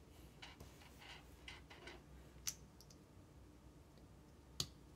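Faint clicks of small plastic LEGO pieces being sorted through by hand, with two sharper clicks about two and a half seconds in and near the end.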